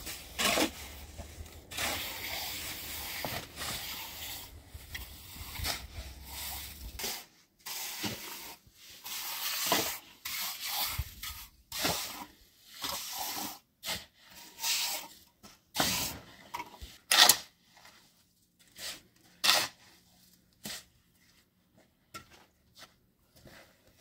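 Steel trowel scraping and smoothing wet cement on the ground in many short, irregular strokes, thick in the first half and more spaced out later.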